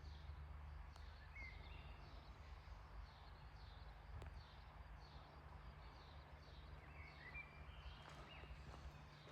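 Birds chirping faintly with short, repeated, falling calls and a few whistled notes, over a steady low hum.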